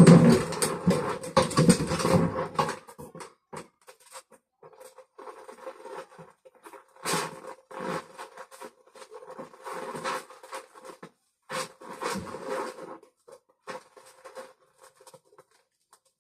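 Intermittent scraping, rubbing and light knocking, densest and loudest in the first two or three seconds, then sparser, over a faint steady hum.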